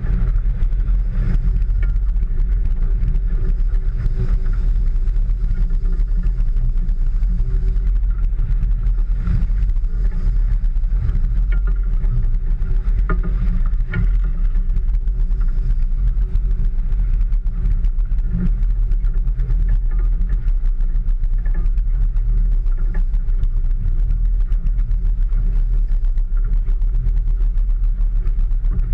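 Steady low rumble of a small fishing boat under way in rough water: its engine running, mixed with wind and water noise on the hull, heard muffled with hardly any high sound.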